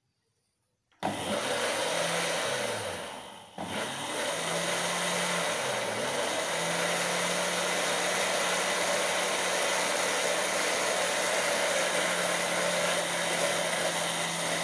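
Oxford countertop blender switched on about a second in, whipping egg and sugar batter in its jar. The motor runs loud and steady, dies down briefly about three and a half seconds in, then picks straight back up.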